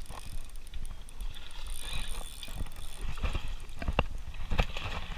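Spinning reel being cranked to bring a hooked bass in to the bank, over a low wind rumble on the microphone, with a couple of sharp knocks near the end.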